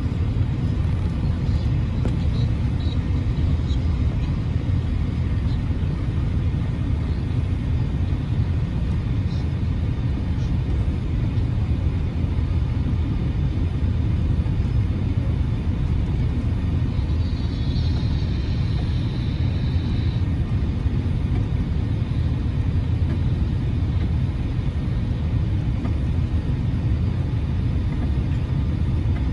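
Airliner cabin noise during landing: a steady low rumble of engines and airflow, with a faint high whine for a few seconds about two-thirds of the way through.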